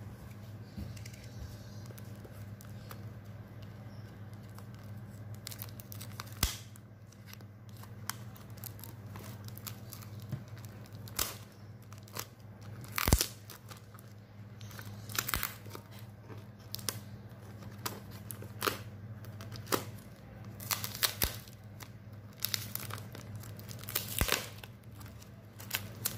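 A parcel's brown packing tape and paper wrapping being ripped open by hand: a run of short, irregular tearing and crinkling sounds that start a few seconds in, the loudest rip near the middle. A steady low hum sits underneath.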